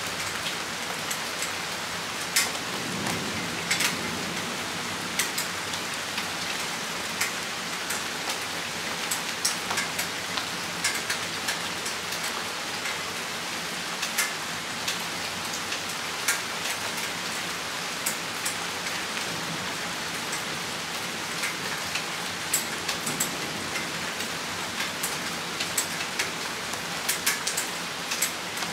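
Steady rain shower hissing, with frequent sharp drops tapping on a nearby surface.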